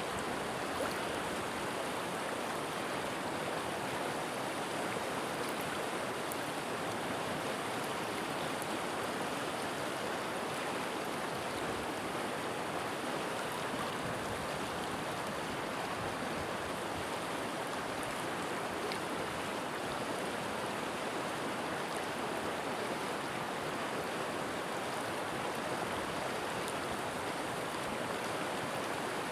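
River water flowing steadily over rocks, a constant rushing babble with no breaks.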